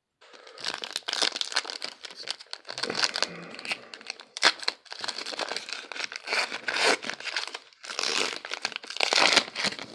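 Foil wrapper of a 2019 Donruss baseball card pack being torn open and crumpled by hand: a run of crinkling, crackling bursts with short pauses between them.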